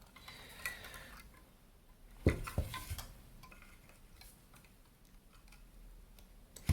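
Small clicks and taps of metal and plastic parts being handled as the fluorescent backlight is worked out of the LCD panel, with a sharper knock about two seconds in and another at the end.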